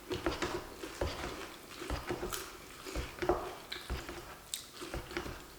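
Close-miked eating sounds: soft chewing with scattered wet mouth clicks and small knocks.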